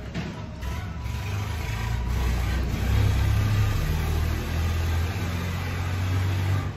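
An engine running with a low drone that swells after about two seconds and cuts off suddenly near the end.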